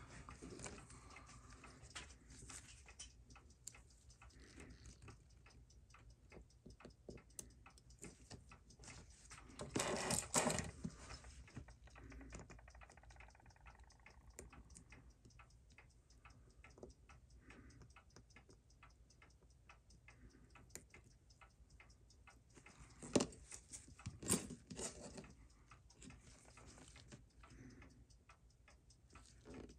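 Rapid, even ticking of a Seiko 6139 chronograph watch movement running, with louder clicks and scrapes of a screwdriver and tweezers working on the movement about ten seconds in and again around twenty-four seconds.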